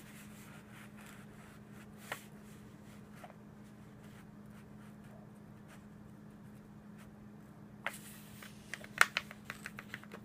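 A sheet of paper being folded and creased by hand on a wooden table: a soft rustle and a single tap about two seconds in, then a quick run of crisp crackles and taps near the end as the fold is pressed flat.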